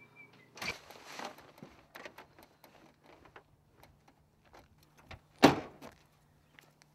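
A car's rear hatch slammed shut about five and a half seconds in, one sharp bang that is the loudest sound, after scattered clicks and rustling, with a short rustling burst about a second in.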